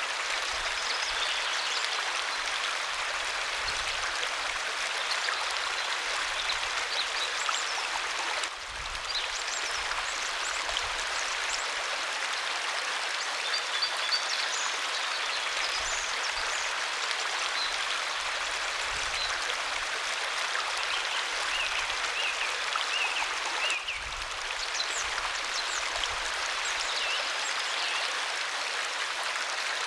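Waterfall: a steady rush of falling water. The level dips briefly twice.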